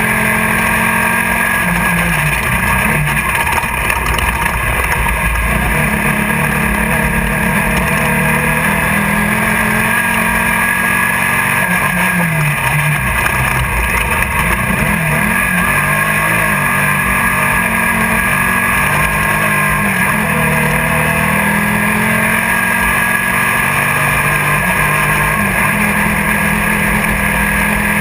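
Class 1600 off-road buggy's air-cooled Volkswagen engine running hard under race load, heard from inside the car. Its pitch dips and climbs back a few times over a steady noisy din.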